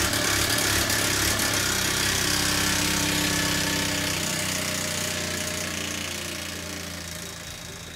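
A Mamod toy steam traction engine's single-cylinder oscillating steam engine running fast on live steam, with a steady hiss and a rapid mechanical chatter. The sound fades away over the last few seconds.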